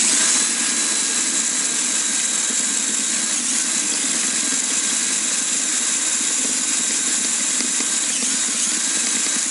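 Bosch cordless drill kicking in at the very start and running steadily without a break, its twist bit boring through a thin galvanized steel plate to enlarge a hole.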